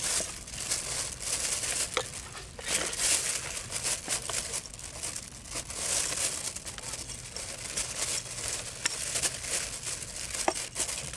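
A plastic bag crinkling and rustling in irregular bursts as a cat pushes its head into it and rummages.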